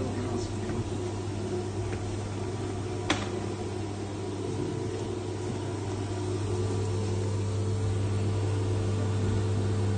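CNC machine running with a steady hum, machining a brass gear knob. A single sharp click about three seconds in.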